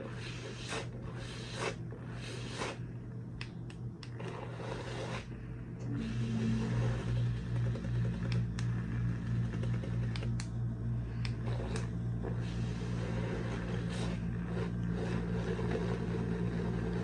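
Electric makeup brush spinner running, its small motor spinning a brush in a bowl of soapy water with a steady hum. Short swishes of water sound over the hum for the first few seconds. About six seconds in the hum grows louder and steadier.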